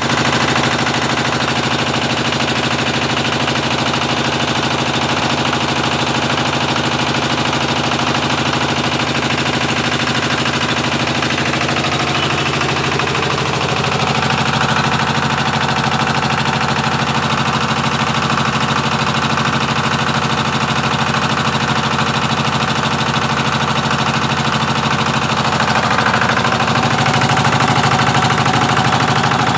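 20 HP single-cylinder power-pack engine driving a 15 kVA single-phase generator, running with a fast, even exhaust beat. It gets a little louder about halfway through and again near the end.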